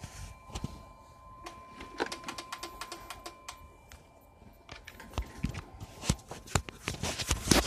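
Plastic clicks and rattles of a Curtis programming handset, its coiled cable and connector being handled, irregular taps that grow busier and louder near the end. A faint steady high tone sounds underneath for most of it.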